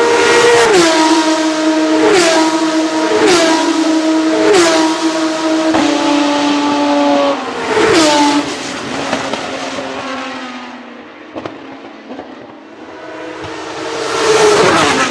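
Dallara GP3 race car's V6 engine at racing speed, with a series of sharp gear changes as a car passes close. The sound then fades, and another car's engine rises near the end.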